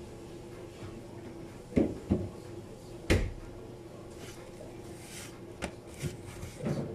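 Sharp knocks and clatter of objects being handled and set down on a kitchen counter: three hard knocks in the first half, then lighter taps near the end, over a steady low hum.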